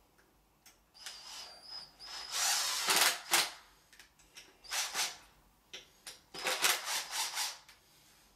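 Cordless drill/driver running in several short bursts with a high whine while driving in screws; the longest and loudest run is about three seconds in, with shorter runs near five and near seven seconds.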